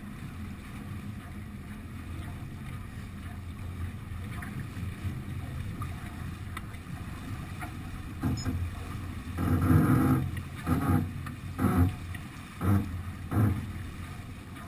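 Steady rush of wind and water on a sailing yacht under way, picked up by a deck-mounted action camera. In the second half comes a run of louder short bursts, about one a second.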